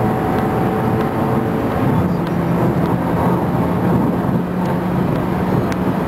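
Audi S3's turbocharged four-cylinder engine and road noise heard from inside the cabin while driving, a steady drone whose note changes and drops about two seconds in.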